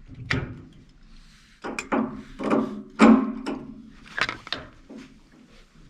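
A series of sharp metal clunks and knocks from pipe wrenches being set on and heaved against a valve that is seized onto carbon steel press pipe with Loctite.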